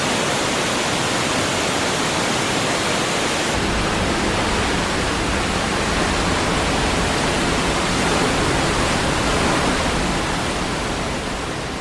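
River water rushing and foaming over rocks in a steady, even rush. About three and a half seconds in it deepens, with more low rumble.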